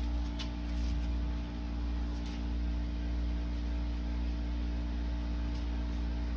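A motor runs with a steady low hum, with a few faint light clicks over it.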